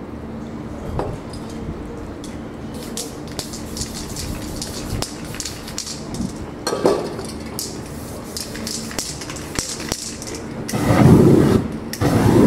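Aerosol spray-paint cans hissing in short bursts onto a board, with small clinks and knocks of cans and tools and a steady low hum behind. Two louder rushing bursts come near the end.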